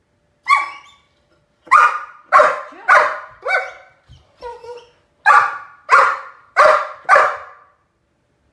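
Great Dane puppy barking: about ten short barks, one on its own and then quick runs of roughly two a second, with two softer ones in the middle.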